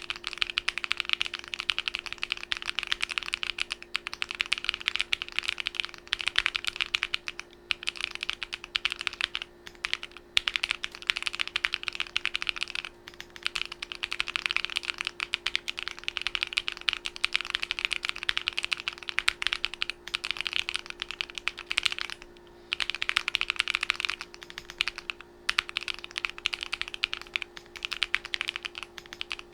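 Fast typing on a DIY Alice-layout mechanical keyboard: rapid runs of key clicks broken by brief pauses, over a steady low hum.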